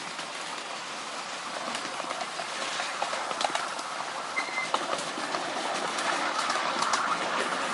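Ride-on miniature railway train rolling along the track: steel wheels running on rails with a steady rumble and irregular sharp clicks and knocks over rail joints, growing slightly louder toward the end.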